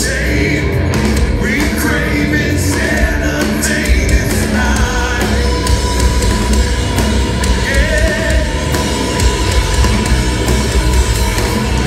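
Live progressive metal band playing loud and full: drums, bass guitar, electric guitar and keyboards, with a steady high held note from about five seconds in.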